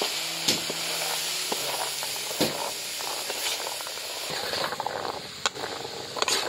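Surette cochon fruit sizzling in palm sugar in a large metal pan, with a metal spatula clinking and scraping against the pan as the fruit is stirred. The sizzle fades about four and a half seconds in, and the clinks continue.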